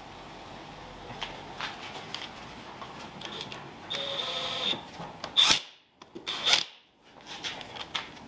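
Light clicks of a wheel bolt and socket being fitted by hand. About halfway through, a DeWalt XR cordless impact wrench spins a wheel bolt in with a steady motor whine. It then lets out two short, loud bursts about a second apart as it hammers the bolt tight.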